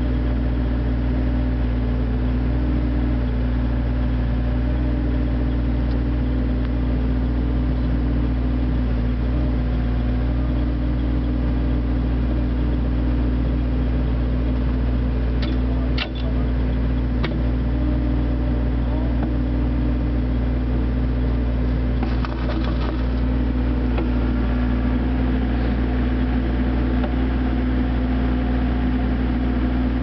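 Excavator diesel engine and hydraulics running steadily as a constant low drone. About halfway through come a few sharp metallic clicks, and a short cluster of them several seconds later, as the quick coupler takes hold of the bucket pins.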